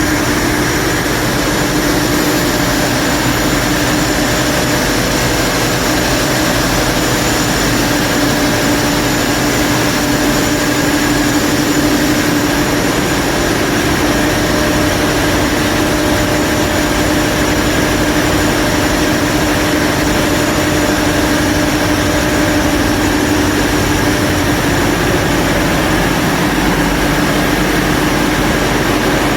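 Cummins QSK60 V16 diesel engine running at a steady speed: a loud, unchanging drone with a constant hum.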